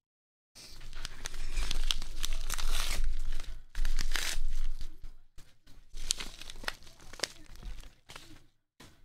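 Padded bubble mailer torn open by hand: paper and bubble lining ripping and crinkling, starting about half a second in, then lighter, intermittent crinkling as the contents are pulled out.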